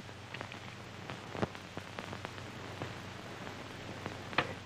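Steady hiss and crackle of an old film soundtrack, with scattered faint pops. Near the end come two sharp knocks.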